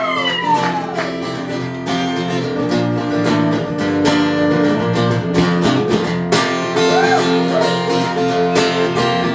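Acoustic guitar strummed and picked in a steady rhythm: the instrumental break between verses of a live folk song.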